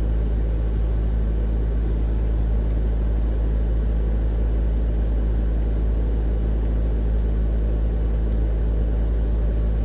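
Steady low rumble of a running car heard from inside its cabin, with a constant low hum.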